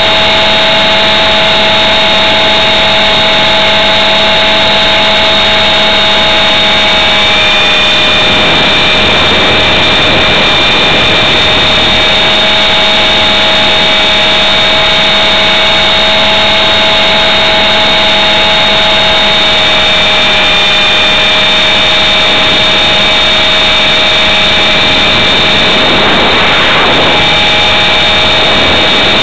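Blade 400 electric RC helicopter's brushless motor and gear train running with a steady high whine over dense rotor-wash noise, very loud from the camera mounted on the helicopter. The whine shifts slightly in pitch a couple of times.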